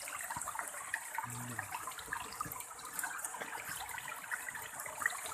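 River water splashing and trickling in a steady wash of small crackles, with a steady high hiss above it.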